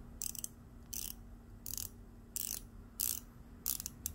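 Rado Captain Cook 42mm's unidirectional matte ceramic dive bezel being turned by hand, ratcheting in about six short runs of clicks, roughly one every two-thirds of a second. The bezel action is a little rattly but very secure.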